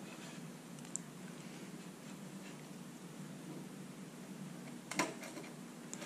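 A dial indicator on a magnetic stand being positioned by hand on a cylinder head: a light click about a second in and a sharper metal click about five seconds in, over a steady low hum.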